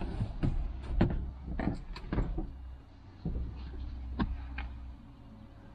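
Chevrolet HHR rear seat being handled and folded forward: a string of irregular clicks, knocks and rattles from the seat-back latch, frame and hardware as it moves.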